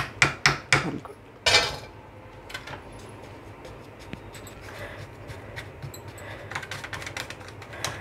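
A metal spatula knocking and scraping against an aluminium tin while crumbly wheat-flour milk cake mixture is spread into it: a few sharp knocks in the first second and a louder scrape about a second and a half in. After that come lighter, irregular scraping and pressing sounds as the mixture is levelled with a silicone spatula.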